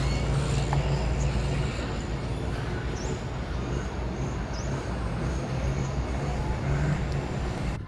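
Steady low engine hum of a nearby motor vehicle over general street noise, with two short high chirps in the middle; the sound cuts off abruptly at the end.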